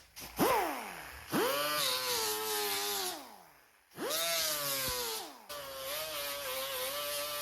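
Electric power sander feathering the edges of a fiberglass patch on a surfboard. A quick blip, then two starts that rise fast in pitch and sag before cutting out, then it runs steadily.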